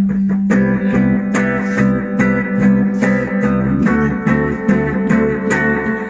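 Acoustic guitar strummed in a steady rhythm over a held low note.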